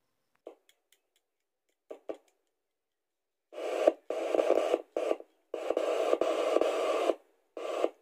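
Static hiss from a portable Osian FM radio's small speaker, coming in bursts that start and stop abruptly several times. The hiss cuts in and out as the homemade 108 MHz transmitter's leads are made and broken at the battery terminals, so the radio gains and loses the transmitter's signal.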